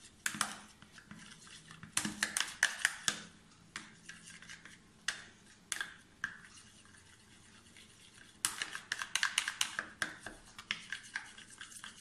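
Metal teaspoon stirring a slime mixture in a small plastic tub: irregular clicks and scrapes of the spoon against the plastic, with two busier runs of quick strokes.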